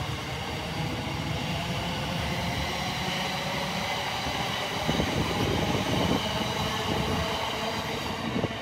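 Class 700 electric multiple unit running at the platform: a steady low rumble from the train with several steady electric whining tones over it.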